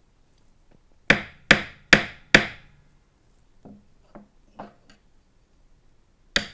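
Drumsticks striking a hard object: four sharp strokes in quick succession, then four much softer ones, then one more sharp stroke near the end. The strokes compare the tone that different sticks draw from the same object.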